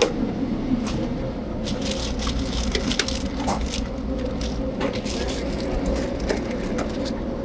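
Quick rustling of plastic bags and clicking of plastic food containers being handled inside a reach-in refrigerator, over the steady hum of a restaurant kitchen.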